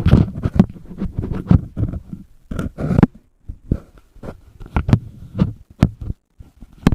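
An irregular run of close, dull knocks and thumps, several a second, with short pauses about halfway through and again near the end.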